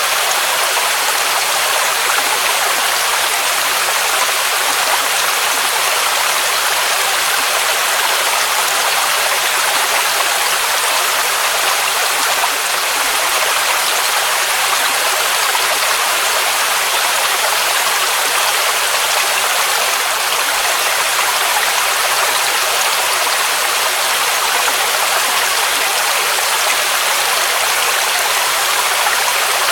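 Waterfall rushing: a steady, loud hiss of falling water, strongest in the upper range with little low rumble, unbroken throughout.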